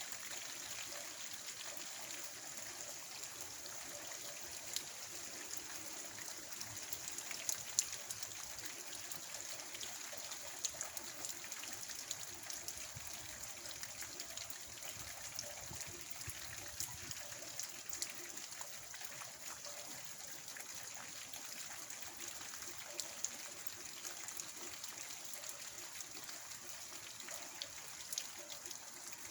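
Rain falling steadily with a soft hiss, with scattered sharper taps of drops striking a surface and a trickle of running water.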